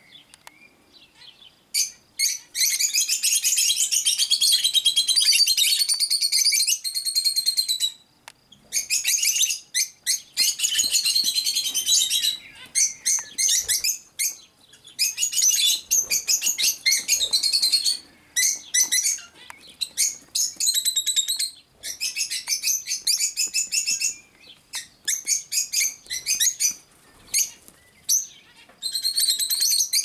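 Young cockatiel chicks calling in long runs of rapid, shrill, high chirps, each run lasting a few seconds with short pauses between.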